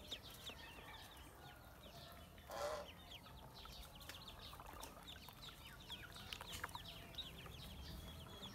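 Ducklings peeping: many short, high calls falling in pitch, in quick succession. One louder, lower call about two and a half seconds in.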